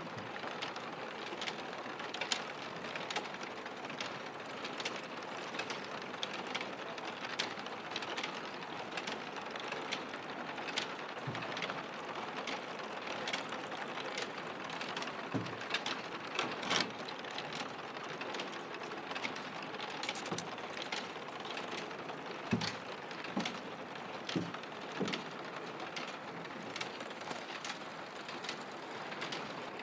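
Machinery in a clay roof-tile factory running with a steady mechanical clatter and frequent sharp clicks, and a few dull knocks in the second half.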